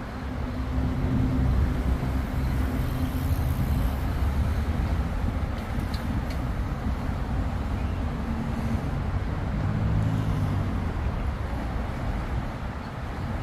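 City street traffic: cars and other motor vehicles driving past with a steady low engine rumble that swells a little twice.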